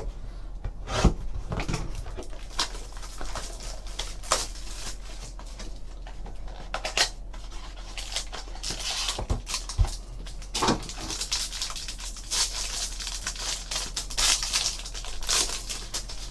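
Trading-card pack being torn open and its cards handled: irregular rustling and tearing of the wrapper with scattered clicks and taps.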